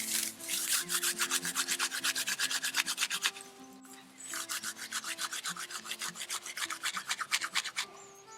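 Fast, rhythmic scraping on wood, about eight strokes a second, in two bouts with a short pause near the middle. Soft background music with held notes plays underneath.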